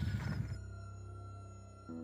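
Background music: slow, held bowed-string-like tones that come in about half a second in, over a low rumble.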